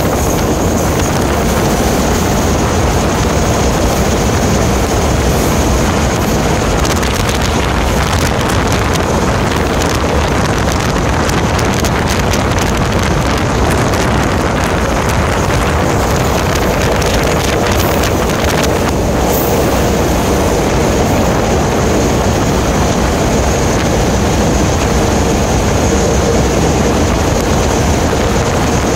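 Steady rush of wind on the microphone over the continuous running rumble of a moving passenger train, with brief crackles of buffeting.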